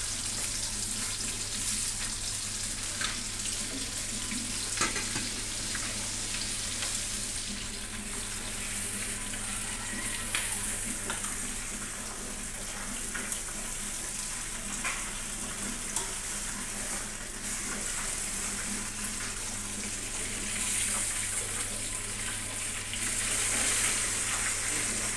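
Food sizzling in hot oil in a frying pan on a gas stove, a steady hiss, with a few light clicks scattered through it.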